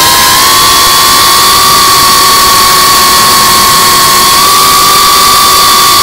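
GEPRC CineLog35 FPV quadcopter's brushless motors and 3.5-inch propellers whining at a steady pitch under constant throttle, the pitch edging up slightly past the middle, over a loud rush of wind and prop noise.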